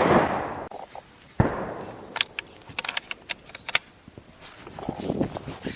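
Two rifle shots about a second and a half apart, each trailing off in a ringing echo, followed by a scatter of sharp clicks and knocks.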